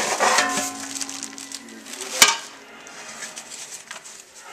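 Plastic packing rustling and crinkling as it is pulled out of an aluminium Presto pressure canner pot, with a single sharp metal clank about two seconds in.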